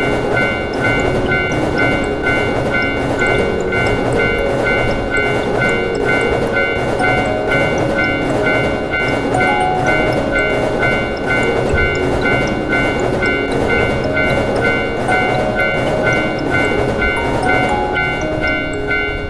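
Railroad crossing bell ringing steadily in an even, repeating two-tone clang while a train passes with a continuous rumble and rail clatter, over light background music.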